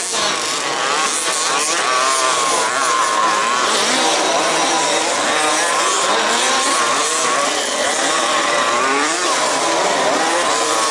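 Several 1/5-scale off-road RC cars with small two-stroke petrol engines racing together, each engine's buzz rising and falling as it revs through the corners and straights, overlapping into a continuous drone.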